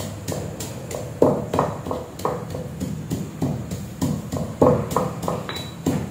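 Stone pestle pounding in a stone mortar, a steady rhythm of stone-on-stone knocks about three a second, each with a short ring, as something is crushed inside.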